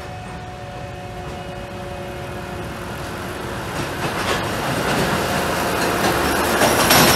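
Work train of flat wagons loaded with concrete sleepers rolling slowly past on the track, the rumble of its wheels on the rails growing steadily louder as it nears, with a few clicks over the rail joints.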